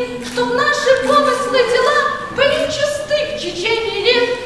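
Voices singing unaccompanied, a song carried in held notes that each start with a short upward scoop.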